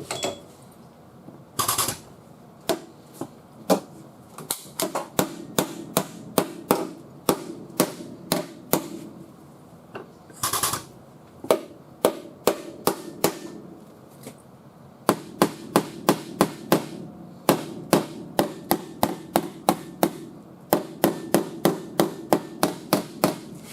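Hammer blows on the sheet-metal quarter panel, knocking down the high spots while the panel is held under pull. The blows come in quick runs of two or three a second, with short pauses and two longer, louder hits.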